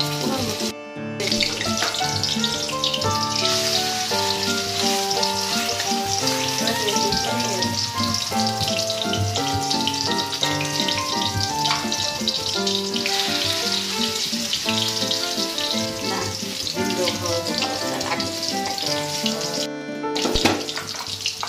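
Chicken chapli kebab patties sizzling in hot oil in an iron karahi, under background music with a melody of held notes. The sound cuts out briefly twice, about a second in and near the end.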